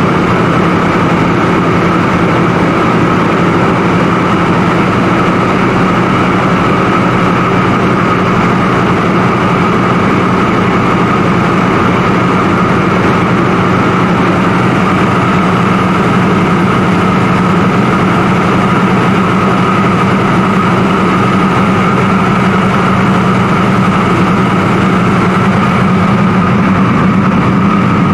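Ford Tri-Motor's three radial engines running at a steady cruise, a constant loud drone heard from inside the cabin.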